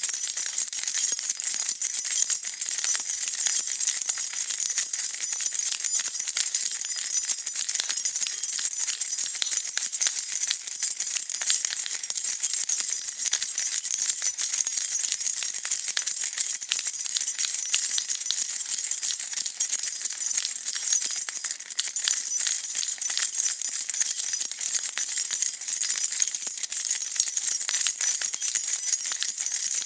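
A bunch of metal keys being shaken continuously, a dense, steady jingling.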